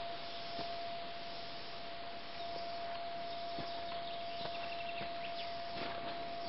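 Steady hiss with a constant thin whine held on one pitch, and a few faint clicks in the second half.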